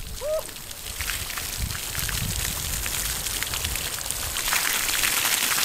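A strong jet of water spraying from the outlet hose of a drum pump, fed by a siphon from a river, splattering over leaves and ground like heavy rain. The force of the spray shows the pump delivering at full strength: "so strong".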